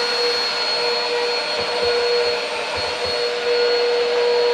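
Bissell PowerLifter Swivel Pet upright vacuum cleaner running steadily: a constant whine over the rush of air.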